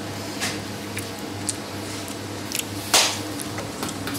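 Kitchen clatter: a few sharp clicks and knocks of utensils and dishes, the loudest about three seconds in, over a low steady hum.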